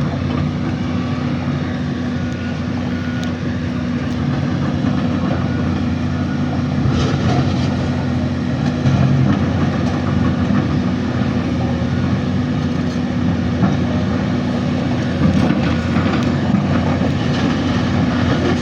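Diesel engine of heavy earthmoving machinery running steadily, with a few sharp metallic clanks about seven seconds in and again near the end.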